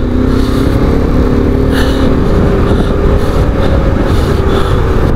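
KTM 390 Adventure's single-cylinder engine running at a steady speed under way, over a loud steady rush of wind and road noise.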